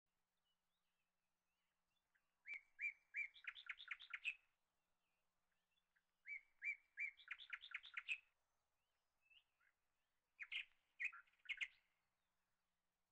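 A small bird singing three short phrases about four seconds apart, each a few spaced notes followed by a quick run of higher notes.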